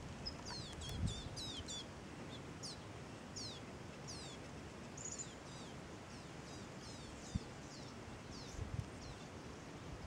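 A flock of goldfinches calling from a tree: many short, high call notes, each slurred downward, overlapping and repeated throughout. A couple of faint low thumps come through underneath.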